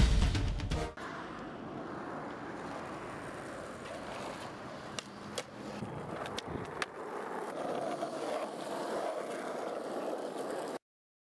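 Skateboard wheels rolling over rough asphalt, a steady grinding rumble, with a few sharp clacks of the board in the middle.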